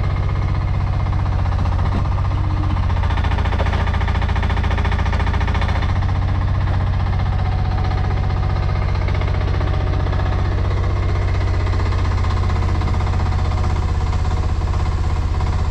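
Chinese mini excavator's engine running steadily while it digs trenches in hard clay.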